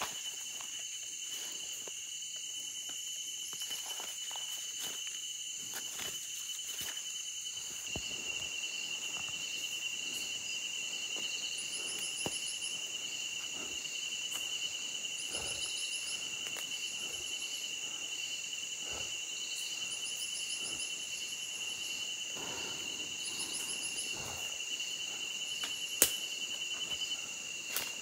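Night-time insect chorus: a steady high-pitched drone runs throughout, with groups of short, very high trills repeating every second or two. A single sharp click comes near the end.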